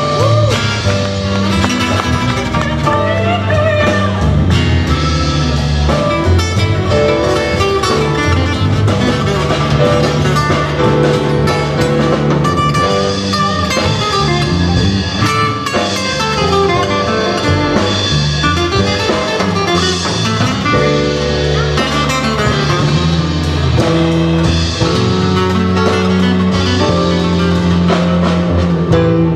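A small live band playing a blues jam, with acoustic guitar and electric bass over a drum kit keeping a steady beat.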